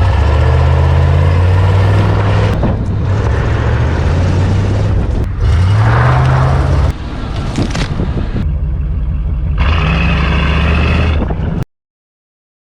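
Loud truck engine and exhaust running and revving in a string of short clips that cut abruptly every second or two, with the revs rising about halfway through. It cuts off into silence about a second before the end.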